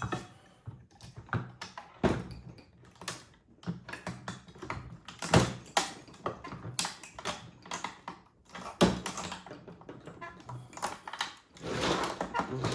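Irregular clicks, taps and knocks of hand tools and parts against the Tesla onboard charger's metal housing and circuit boards as it is taken apart. The clicking thickens into a busier rustling clatter near the end.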